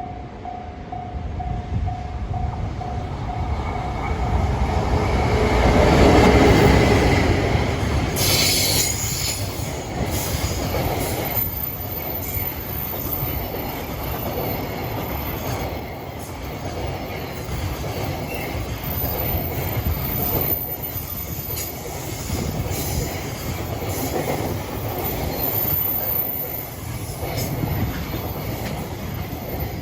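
A freight train hauled by an EF510 electric locomotive passing close by. It is loudest as the locomotive goes past about six seconds in; after that the long string of freight wagons rumbles and clatters over the rail joints.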